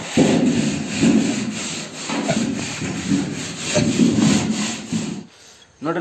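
A sheep feed trough being wiped out by hand, with repeated rough rubbing strokes about once a second that clear out leftover husk and dirt. The rubbing stops about five seconds in.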